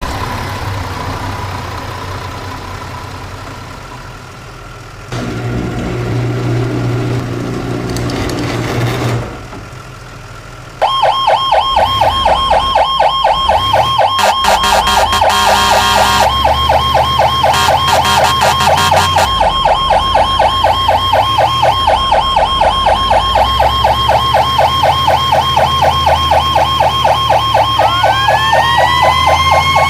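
Fire truck siren heard from the truck's cab. The first stretch is quieter rumble. About a third of the way in, an electronic siren cuts in suddenly and loud, cycling up and down rapidly in a fast yelp. Near the end a second siren tone winds up, rising in pitch.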